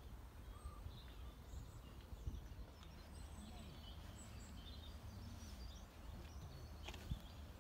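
Quiet outdoor ambience: faint birds chirping over a low, steady rumble, with two small knocks, one about two seconds in and one near the end.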